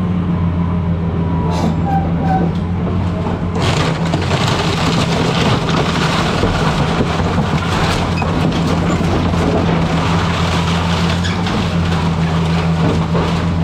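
Excavator's diesel engine running steadily. From about three and a half seconds in, continuous crunching and cracking of wood and debris as the house's structure is torn down.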